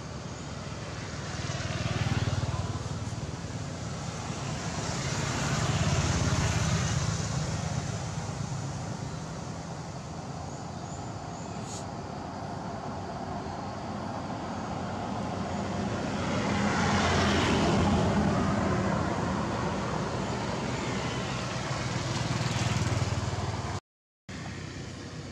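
Road traffic going past: motorbikes and cars, each swelling and fading as it goes by, about four times.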